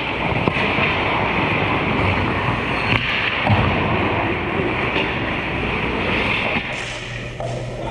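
Ice hockey game noise in an echoing indoor rink: skates scraping and carving on the ice, with a few stick clacks. The sound changes abruptly near the end.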